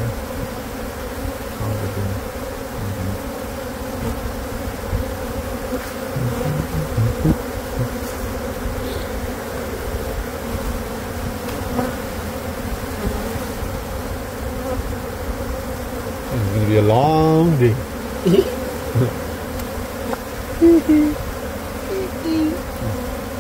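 Dense, steady buzzing of a large honey bee colony swarming over exposed comb as the nest is cut out of a brick wall cavity. A brief voice cuts in about two-thirds of the way through.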